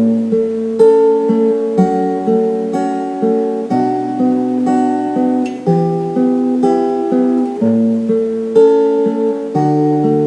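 Acoustic guitar playing a song's chords, with bass notes and chord changes about once a second; no singing yet.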